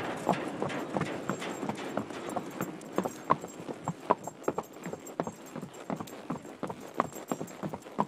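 A horse walking across the wooden plank deck of an old steel bridge: its hooves give sharp, hollow clops on the boards, about two to three a second. The worn deck, due for repairs, sounded to the rider as if it might collapse.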